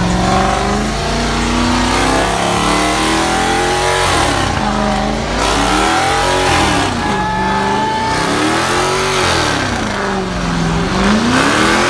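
Car engine revving hard during a burnout, its pitch rising and falling again and again every two seconds or so as the driver works the throttle, with the rear tyres spinning on the pavement.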